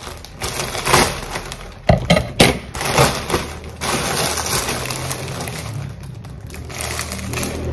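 Plastic parcel packaging being cut open with scissors and pulled apart, with several sharp crinkles and cracks in the first few seconds, then steadier rustling as the contents are drawn out.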